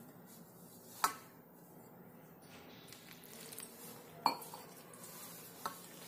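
Large stainless steel plate clinking sharply three times (about a second in, after about four seconds, and once more shortly before the end) as hands work crumbly gulab jamun flour mix with water in it, with a faint rubbing of the mix in between.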